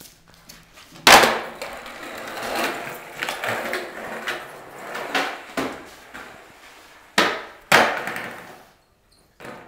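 Skateboard hitting a concrete floor: a loud slap about a second in, then wheels rolling and the wooden deck knocking and clattering, with two more hard slaps near the end.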